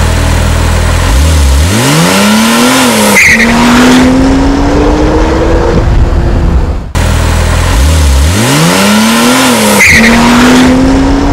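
Porsche 911 Turbo S (991) twin-turbocharged 3.8-litre flat-six accelerating hard: the engine note climbs steeply from low revs, drops at an upshift of the seven-speed dual-clutch gearbox about three seconds in, then rises more slowly in the next gear. The run breaks off about seven seconds in and starts over from low revs with the same climb and shift.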